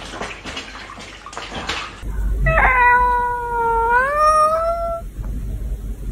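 A kitten scrabbling on a water-filled play mat makes the water inside slosh. Then an orange-and-white cat lets out one long, loud yowl that rises in pitch toward its end.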